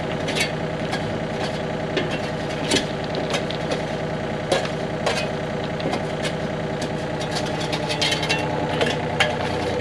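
An engine running steadily at idle, with scattered sharp knocks and clinks over it.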